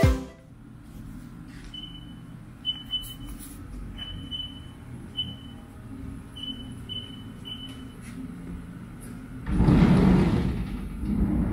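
Haas VF-4 CNC mill's control panel keypad giving a series of short high beeps as keys are pressed, over a low steady hum. Then the machine's sliding front enclosure doors are pushed open, a loud rolling slide in two pushes near the end.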